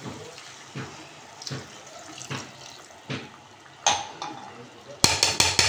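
A glass of water poured into a pot of fried potatoes and masala, with soft knocks against the pot about every three-quarters of a second. Near the end comes a quick run of loud metal clatters.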